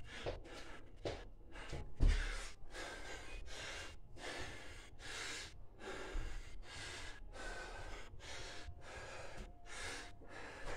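Hard, fast breathing of a man worn out mid-set of Navy SEAL burpees, gasping in and out about twice a second. There is a single thud about two seconds in.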